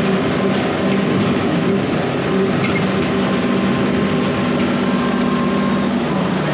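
Tractor engine running steadily under load while bush hogging, its pitch rising at the very end as the revs come up.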